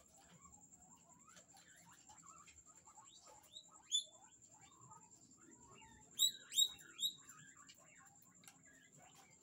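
Guinea pigs squeaking in a wire cage: one short, sharp, rising squeak about four seconds in, then three quick ones in a row a couple of seconds later. Under them run faint small chirps and rustling.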